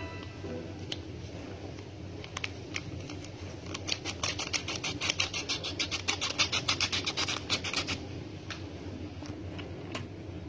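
Waffle batter being whisked in a bowl: scattered clicks at first, then a run of rapid, rhythmic whisk strokes, several a second, through the middle of the stretch, easing back to occasional clicks near the end.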